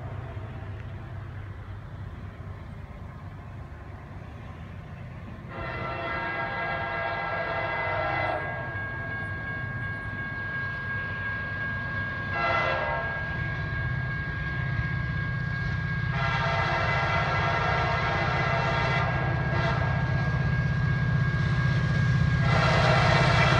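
Air horn of an approaching CSX freight locomotive sounding the grade-crossing pattern: a long blast, a short blast, then a long final blast, over a low diesel rumble that grows louder as the train nears.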